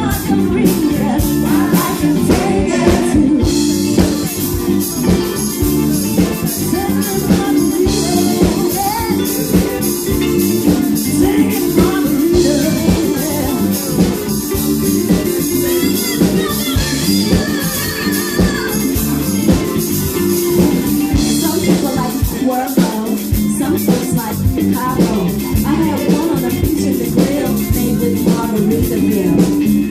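A live band playing an upbeat song, with guitar and drums and some singing.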